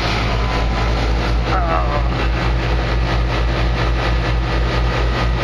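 Newly installed Goodman GSX13 4-ton air-conditioning condenser running: a steady low hum of the compressor and outdoor fan with an even, fast pulsing, sounding healthy.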